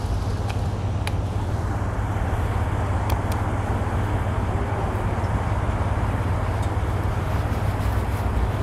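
Steady city street traffic noise from cars idling in a stopped queue, with a constant low rumble and a few faint ticks.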